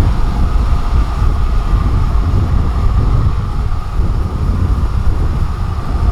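Diesel engine of a rice combine harvester running steadily, with a deep, fluctuating low rumble.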